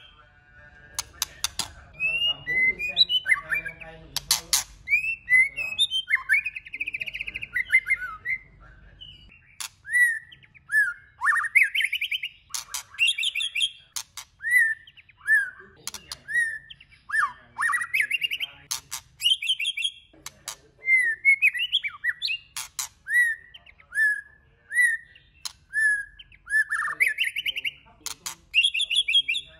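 Male white-rumped shama singing a varied song of clear whistled notes and rising and falling glides, mixed with short sharp clicking notes. Through the middle stretch a short whistle comes back about once a second between longer phrases.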